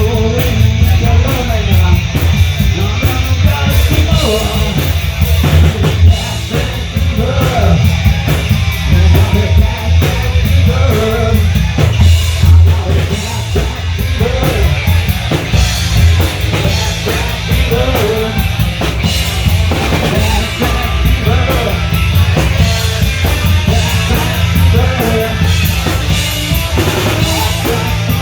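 Live punk rock band playing loud with a pounding drum kit, bass and distorted guitars.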